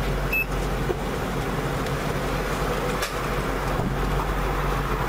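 Steady road noise from traffic passing on a multi-lane highway, over a low, even engine hum.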